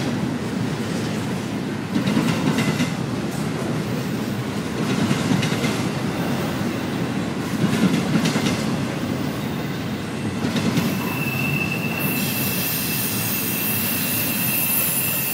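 Double-stack intermodal freight train rolling past close by: a loud rumble and clatter of steel wheels on rail that swells every few seconds as each car's trucks go by. About two thirds of the way through, a steady high-pitched wheel squeal sets in and holds.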